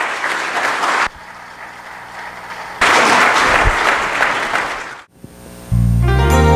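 Congregation applauding in two stretches, each cutting off abruptly. Near the end, keyboard music starts with sustained notes over a heavy bass.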